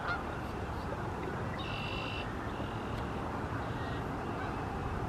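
Steady outdoor background noise with a short, high bird call about a second and a half in, followed by a fainter call.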